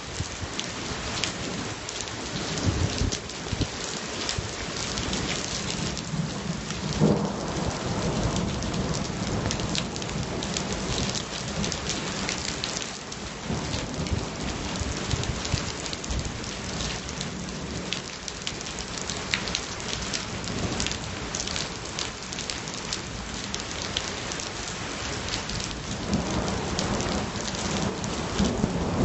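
Steady heavy rain, with many individual drops ticking close by. Low thunder rumbles through it, swelling about seven seconds in and again near the end.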